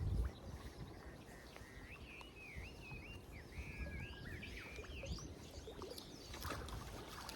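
A songbird singing a quick series of short, arching chirps over a low steady rumble.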